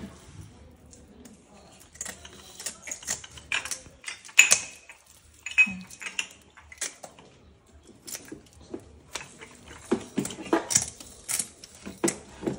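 Scales being scraped off a whole fish with kitchen scissors: irregular rasping strokes and sharp ticks as the scales break loose.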